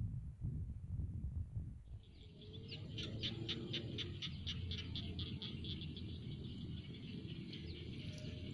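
A bird calling a rapid run of short high notes, about six a second, starting about two seconds in and trailing off into a thin steady high sound, over a low rumble.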